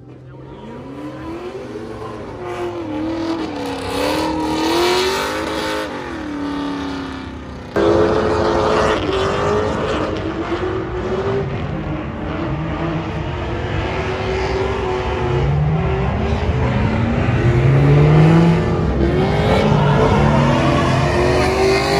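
Car engines revving, their pitch climbing and falling again and again, with a sudden jump in loudness about eight seconds in.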